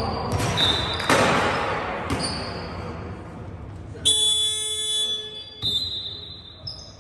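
Basketball scoreboard buzzer sounding once, a steady electronic tone lasting about a second and a half a little past the middle. Before it, a ball bounce on the hall floor and short high squeaks from the court.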